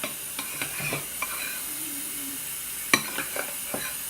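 Homemade slime being stirred and mixed in a bowl: a run of short sticky clicks and taps over a steady hiss, the loudest about three seconds in. The mixture is just starting to form and is still a little sticky.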